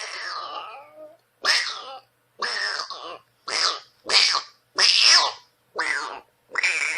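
Angry, aggressive cat yowling in a run of about eight short calls with brief gaps between them, several falling in pitch.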